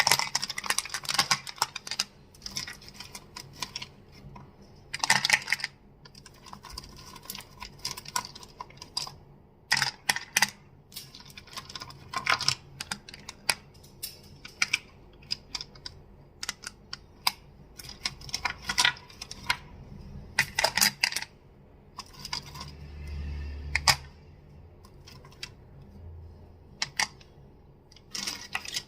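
Crystals clicking and clacking under close miking, in irregular flurries of quick sharp taps with short pauses between. About two-thirds of the way through there is a softer stretch with a brief low rumble.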